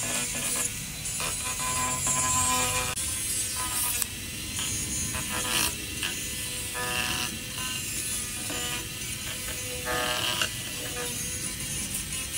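Small handheld rotary engraving tool grinding into wood, its motor whine rising and falling in short bursts as it bites.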